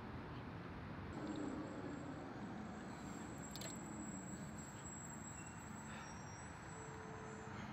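Steady road traffic noise from cars on a nearby street, with a thin high whine from about a second in until near the end.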